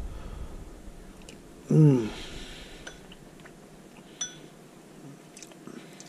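A man eating a spoonful of gumbo, with a short appreciative "mm" about two seconds in, followed by a few light clinks of a metal spoon against a small glass dish.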